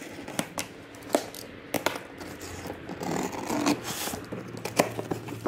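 Utility knife slitting the packing tape on a cardboard box, then the cardboard flaps being pulled open with scraping and rustling, with a few sharp clicks and taps along the way.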